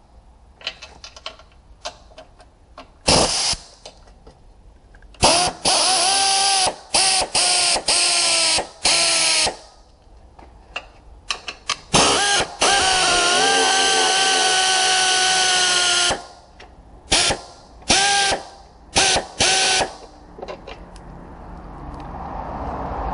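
Pneumatic wrench on an air hose, run in about a dozen short bursts to spin fasteners on a car's front bumper bar. Each burst is a hissing whine that rises in pitch as the tool spins up and then holds, with one long run of about four seconds in the middle.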